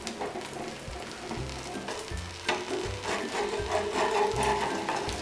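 A metal spatula scraping and knocking against a hot tawa as it is worked under the edge of an egg-topped flatbread to loosen it for flipping, over the sizzle of the frying batter. There are sharp knocks at the start and about two and a half seconds in, and busier scraping near the end.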